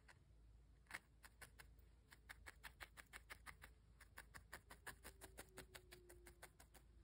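Faint, rapid pokes of a fine felting needle stabbing into a firmly felted wool pumpkin, about five a second, starting about a second in.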